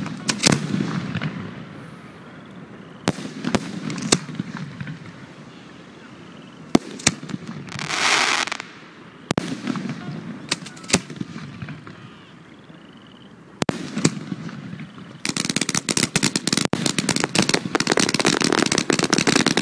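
Aerial fireworks display: shells bursting with sharp bangs every second or two, and a hiss lasting about a second some eight seconds in. From about fifteen seconds on comes a dense, loud run of rapid crackling pops.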